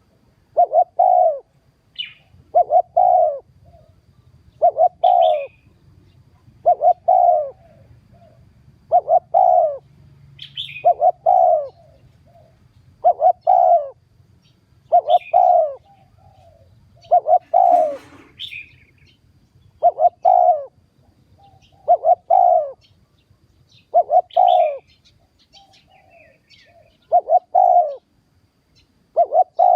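Spotted dove cooing over and over, one cooing phrase about every two seconds. Short higher chirps come at the start of many phrases.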